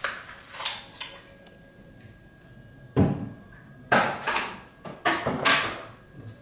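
Cardboard packaging rustling as a plastic bottle is slid out of its box, then a single sharp knock about three seconds in as the bottle is set down on the table, followed by a few more rustles and scrapes of handling.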